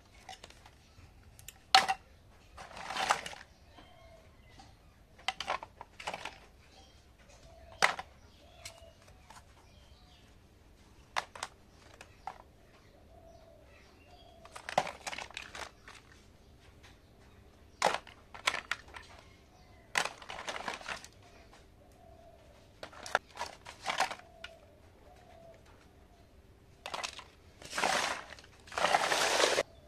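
Small plastic toy kitchen pieces clicking and clattering against each other as a hand picks through and moves them, with sharp knocks and short scraping rustles at irregular intervals. The longest and loudest scrape comes near the end.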